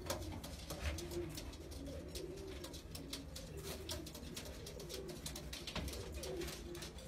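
Domestic pigeons cooing, a series of low warbling coos, with scattered light clicks and a low steady hum underneath.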